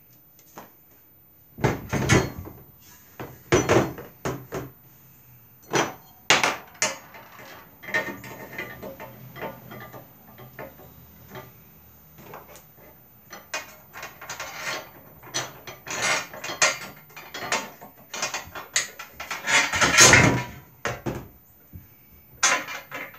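Metal frame rails and brackets of a lawn cart knocking and clattering against each other and against the cart's plastic tub as they are handled and fitted. The knocks come irregularly, with the loudest cluster near the end.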